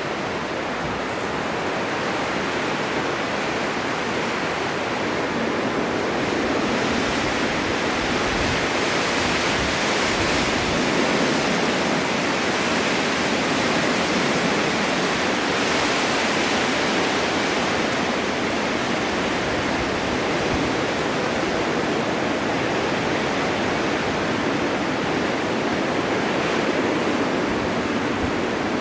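Steady rushing of strong winter wind in a snowstorm, an even roar that swells slightly after the first few seconds and holds.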